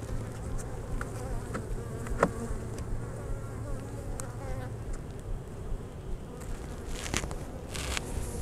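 Honeybees buzzing steadily around an open hive, with a few sharp knocks as the wooden hive box is handled and two brief rustles near the end.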